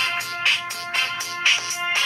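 Preloaded ringtone on a Samsung GT-I5500L phone playing: an electronic tune of held synth chords with a strong beat about once a second.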